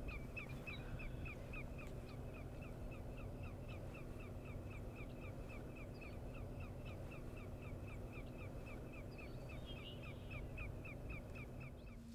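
An animal calling outdoors in a fast, even series of short chirps, about four a second, which stop near the end. A steady low hum and faint background rumble lie underneath.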